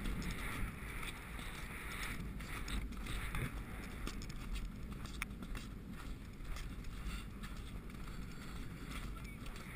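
Wind buffeting a rider's head-mounted camera microphone as a horse canters across grass, with the muffled thud of its hooves and tack underneath.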